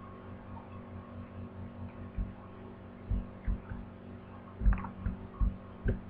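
Steady electrical mains hum from the recording setup, with about seven short dull thumps spread through the second half, the loudest about three-quarters of the way in.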